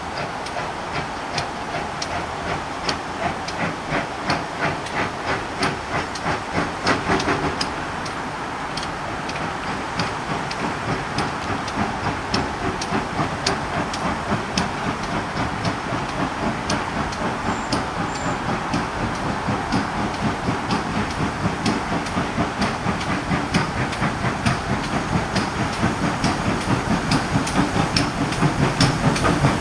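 GWR pannier tank steam locomotive 1369 working a passenger train, a regular steam exhaust beat that quickens and grows louder as the engine comes nearer.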